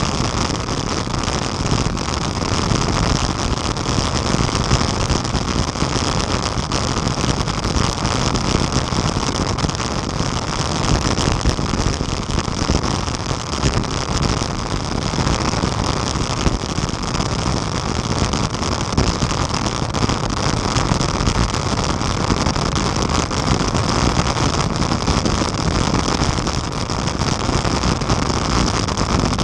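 Steady rush of wind and tyre noise from a camera mounted on a road bike riding at speed in a pack of cyclists.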